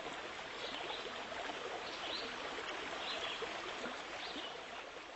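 Running water, a stream-like rush, with short high bird-like chirps about once a second.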